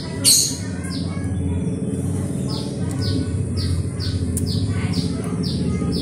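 Eurasian tree sparrows chirping: one loud sharp chirp about half a second in, then a run of short falling chirps about two a second, over a steady low hum.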